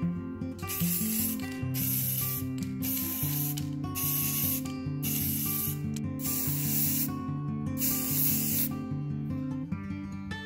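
Aerosol spray paint can hissing in about seven short bursts, each under a second, as white paint goes onto a stainless steel tumbler. Background music runs throughout.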